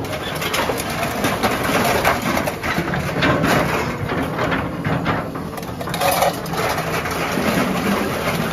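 Hydraulic excavator running while its bucket and thumb grab scrap metal off a trailer. Many metal clanks and scrapes sound over the steady engine noise.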